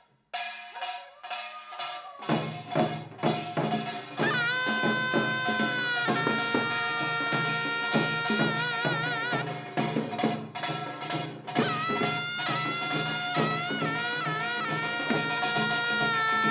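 Korean traditional music with drums: drum strokes open, and a loud, sustained melody with vibrato from a wind instrument comes in about four seconds in over a steady drum beat.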